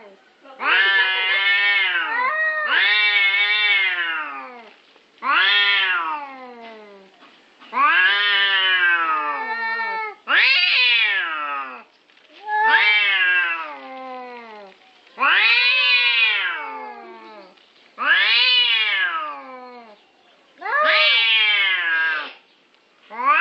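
Domestic cat yowling over and over: about nine long, drawn-out meows, each rising then falling in pitch, coming every two to three seconds.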